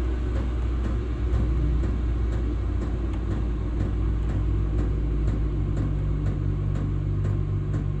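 Vevor diesel air heater running and ramping down toward its lowest setting: a steady low hum from its fan, joined by a steady higher tone about two seconds in, with faint regular ticks.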